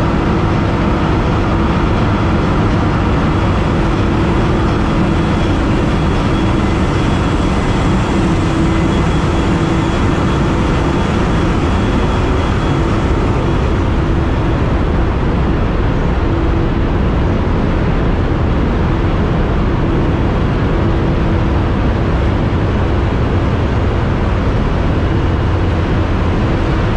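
Loud, steady machinery noise in a cargo ship's engine room: the slow-speed main diesel engine turning the propeller shaft at about 81 RPM, a constant hum over dense engine noise.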